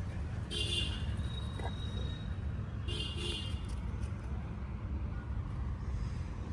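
Steady low rumble of street traffic, with two short high-pitched sounds about two and a half seconds apart.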